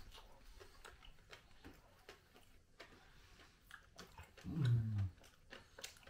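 Quiet chewing of a soft cream-filled doughnut, with small wet mouth clicks. About four and a half seconds in comes a short, low hummed "mm" that falls in pitch.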